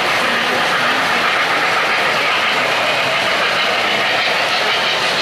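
O-gauge three-rail model trains running on the layout, a steam locomotive and then passenger cars passing close by, making a steady rolling noise of wheels on track and motors.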